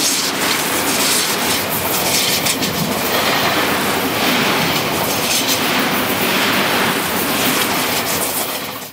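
Tobu 30000 series electric commuter train passing close by at speed: a steady rush of running noise, with the wheels clacking over rail joints.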